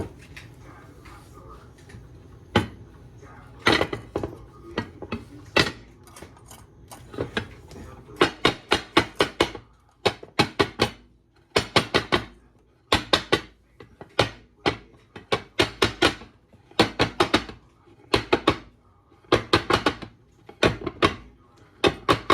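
Utensils clinking against dishes: quick runs of sharp clicks, a few at a time, coming about once a second for most of the stretch after fewer, scattered clicks at first.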